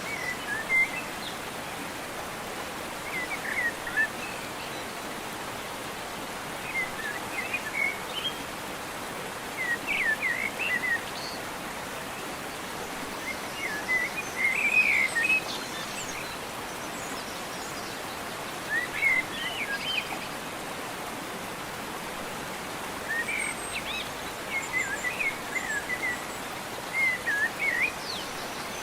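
Steady rushing of a waterfall, with a songbird singing short chirping phrases every few seconds over it.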